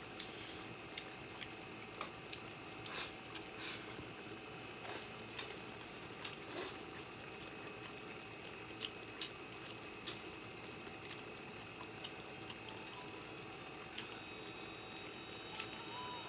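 Faint, steady room hiss with scattered light clicks and taps of chopsticks against a bowl during a meal.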